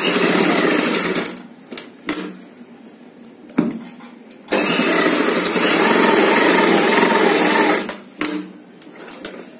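Sewing machine stitching along fabric in two runs: a short one of about a second at the start, then a longer steady run of about three seconds from about halfway. A few small clicks of the fabric and machine being handled come in the pause between.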